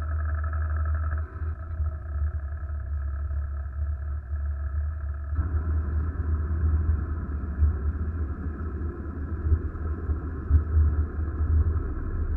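Sailing yacht's inboard auxiliary engine running steadily as the boat motors with its sails furled, a low rumble with a steady hum above it. About five seconds in, a rushing noise joins it.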